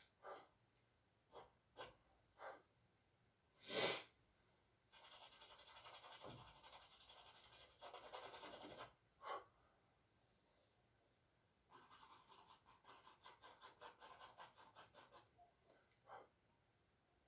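Charcoal scratching on canvas in quick, repeated hatching strokes: two long runs of rapid strokes, several a second, with scattered single strokes and taps between them. A brief, louder noise comes about four seconds in.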